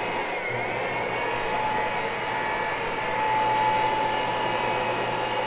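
Carpet-cleaning machine's electric motor running steadily with a constant high whine, dipping briefly in pitch about half a second in.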